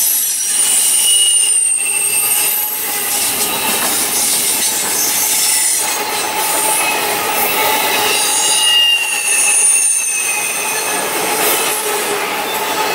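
Intermodal freight train cars rolling past, their steel wheels squealing in high, wavering tones over the steady noise of wheels on rail.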